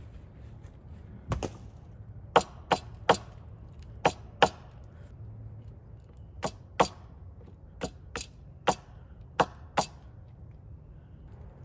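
A blade chopping into the end of a wooden stick to sharpen it into a stake point: about fourteen sharp, separate cuts in small groups of two or three.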